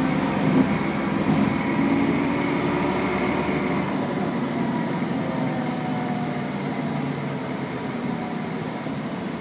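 Bus heard from inside the passenger saloon: a steady engine and road drone with faint whining tones that slide gently in pitch. The deep rumble eases about four seconds in.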